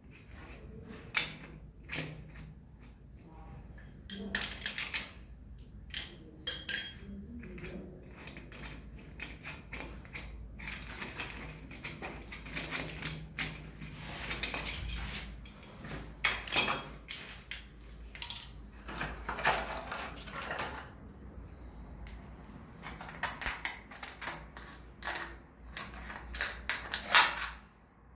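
A chrome shower mixer and its threaded wall connectors handled and fitted by hand: scattered metal clicks and clinks with stretches of scraping, and a quick run of clicks near the end.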